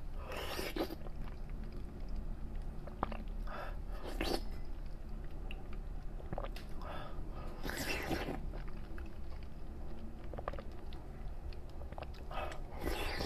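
A person eating chilled grape fruit jelly: wet chewing in several short bursts, the strongest near the start, around the middle and near the end, over a steady low hum.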